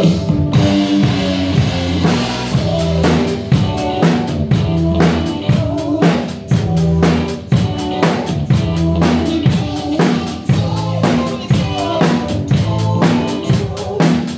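Drum kit played in a steady groove, with bass drum, snare and cymbal strokes, over accompanying music with pitched instruments. The strokes grow denser about two seconds in.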